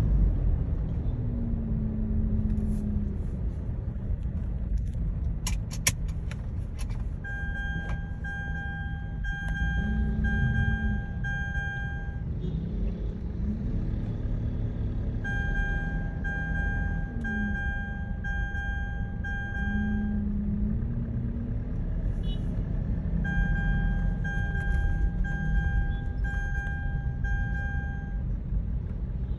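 Mitsubishi Pajero Sport seat-belt reminder chime beeping in three rounds of about five beeps each, with a pause of a few seconds between rounds. It warns that the seat belt is unfastened while the car is moving. The chime sounds over the car's rumble inside the cabin, and a few sharp clicks come shortly before the first round.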